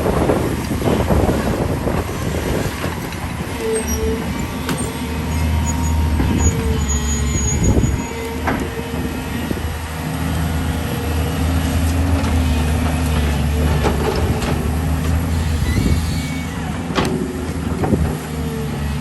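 Excavator diesel engine running steadily under load with a low drone, picking up about four seconds in and easing briefly twice. Scattered knocks and cracks sound over it.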